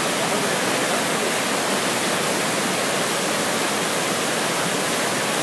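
Whitewater rapids of a fast mountain river rushing over boulders: a loud, steady rush of water.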